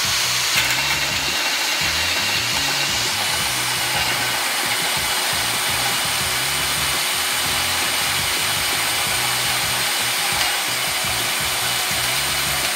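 Einhell 18 V brushless cordless drill in low gear (speed 1) driving a hole saw through plywood: an even, steady motor whine over the rasping of the saw teeth in the wood. The hole saw is bent and missing one of its carbide tips.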